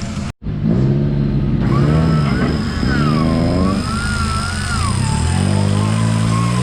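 Off-road 4x4's engine revving up and down under load on a trail, with a wavering high whine that rises and falls alongside it. The sound cuts out for a split second just after the start.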